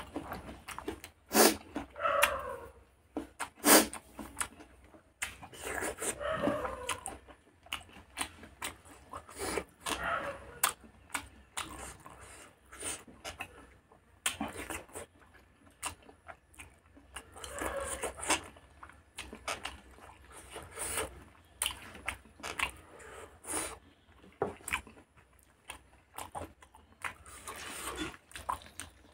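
Close-miked eating of rice and pork curry by hand: wet chewing and lip-smacking with many sharp mouth clicks at an uneven pace, the loudest clicks in the first few seconds.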